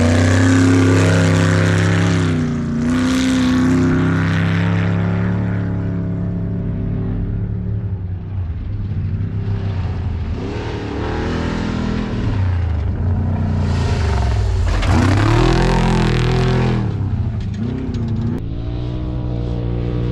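Off-road desert race vehicles driving past at speed, their engines revving up and down through gear changes in several swells, over a steady low engine hum.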